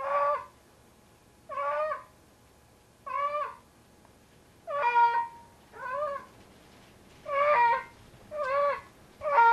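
Large house cat yowling over and over, about eight drawn-out calls of half a second each, one every second or so, each dipping slightly in pitch. This is the loud yowl a cat gives while carrying a toy in its mouth, here a bundle of socks it treats as its kitten.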